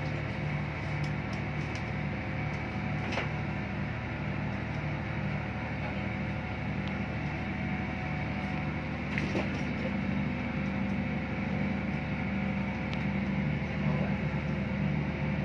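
Steady drone and low hum of running diesel generator machinery, heard from the switchboard room, with a few faint steady tones over it. A couple of faint clicks come about three seconds in and again about nine seconds in.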